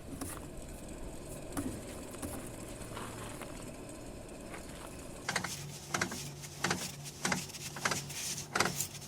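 Car differential with damaged internal bearings: a steady hum, joined about five seconds in by irregular sharp knocks over a slightly higher-pitched hum.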